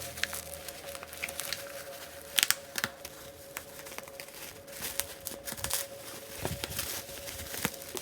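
Thick shock-proof packing wrap being pulled off a parcel and crumpled by hand: irregular crinkling and tearing with a few sharp crackles, loudest about two and a half seconds in.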